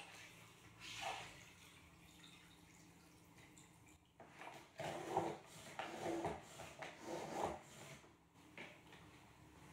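Microfibre flat mop pad being drawn up through the wringer slot of a flat-mop bucket, water squeezed out and dripping into the bucket. A run of several short strokes comes about halfway through.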